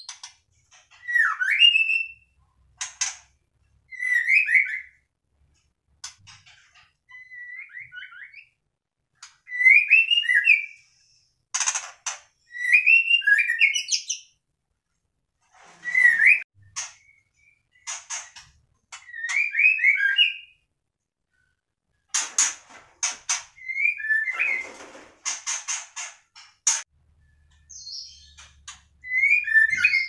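White-rumped shama (murai batu) singing: short whistled phrases about every second or two, mixed with rapid high-pitched chattering notes, with brief pauses between.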